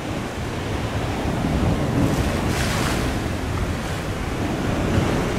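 Rough surf breaking and churning against rocks, with wind buffeting the microphone; a wave surges louder about two to three seconds in.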